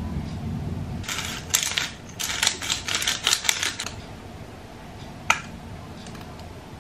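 Hand food-preparation noises: a run of quick crackly rustles and squelches for about three seconds, then one sharp click, as a plastic squeeze bottle of white sauce is handled and squeezed over a bowl of chicken and rice.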